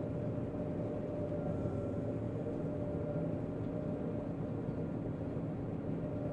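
John Deere 9500 combine running steadily while harvesting soybeans: an even machine drone with a few held tones over it.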